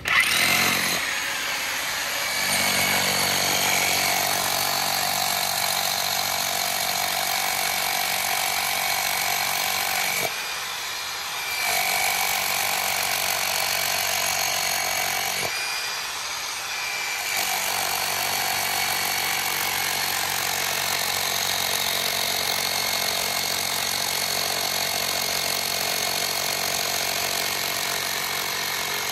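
Milwaukee SDS Max rotary hammer running steadily while driving rebar into the ground, dipping briefly twice, about ten and sixteen seconds in. It sounds like it is hitting, but the owner says it is not really hitting: the worn-out hammer is not strong enough to beat the rebar into the dirt.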